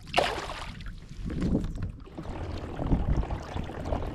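Boat under way on the lake, with wind buffeting the microphone and a low rumble from hull and water, pulsing irregularly. It opens with a brief loud rush of noise.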